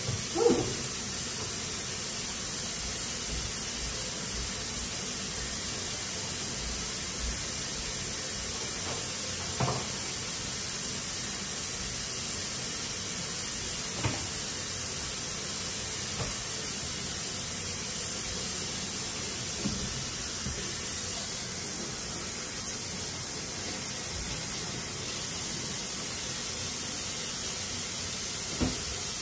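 A steady, even hiss, with a few light knocks standing out now and then, the first just after the start.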